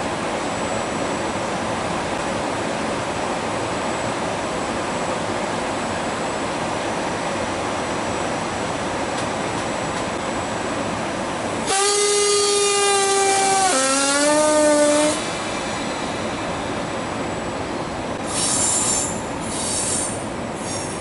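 Trenitalia E464 electric locomotive with double-deck coaches running steadily as it approaches. About halfway through it sounds its two-tone horn, a higher note and then a lower one, for about three seconds. Near the end come three short, high-pitched squeals from the wheels on the curving track.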